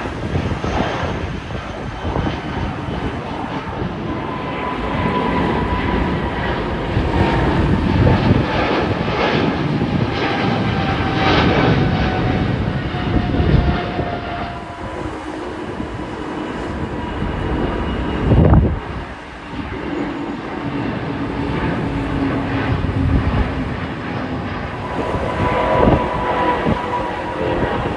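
Jet engines of twin-engine airliners climbing out after take-off, a British Airways Airbus A320-family jet and then Boeing 777s. It is a broad, steady engine noise with a whining tone that slowly falls in pitch, and the sound shifts as one aircraft gives way to the next. A brief thump comes about two-thirds of the way through.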